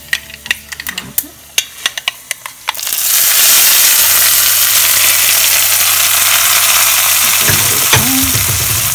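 Mustard seeds crackling and popping in hot coconut oil. About three seconds in there is a sudden loud sizzle as the hot tempering of mustard seeds, dried red chillies and curry leaves is poured onto the yogurt-and-coconut cucumber pachadi, and the sizzle goes on steadily. One sharp click comes near the end.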